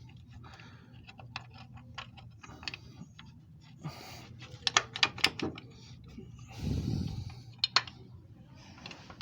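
Scattered metallic clicks and knocks of hand tools and parts as an engine mount is worked into place, with a short low rumble about seven seconds in.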